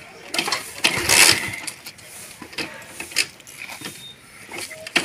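Motorcycle being kick-started without the engine catching: the kick-start ratchet and the engine turning over, loudest about a second in and again near the end. The bike will not start.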